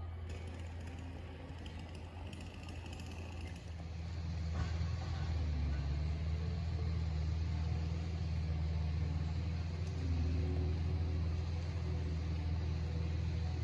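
Cat skid steer's diesel engine running, a steady low drone that grows louder about four seconds in.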